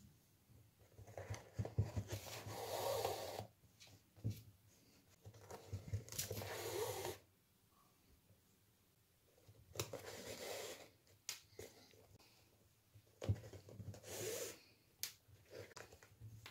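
Flat shoelace being threaded and pulled through the eyelets of a sneaker: about four swishing rubs of lace drawn through, with light taps and clicks of handling in between.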